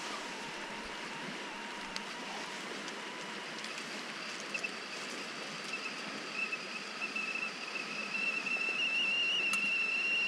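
Metal kettle on a campfire starting to whistle as it comes to the boil: a thin high whistle begins about four seconds in, wavers slightly and grows steadily louder, over a steady hiss.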